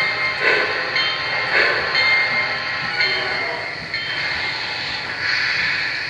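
Onboard sound system of a Lionel Legacy 2-8-2 Mikado model steam locomotive playing slow steam chuffs, about one a second. About five seconds in, they give way to a longer steady hiss.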